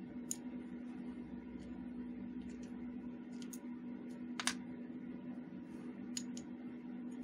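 Light, scattered clicks and taps of small metal gun parts being handled, about eight, with the loudest about four and a half seconds in. The parts are the frame, hammer and trigger of a homemade Flobert 4 mm derringer. A steady low hum runs underneath.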